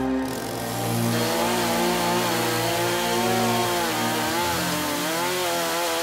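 Small chainsaw cutting through a fallen tree trunk, its engine pitch wavering up and down as the chain works under load.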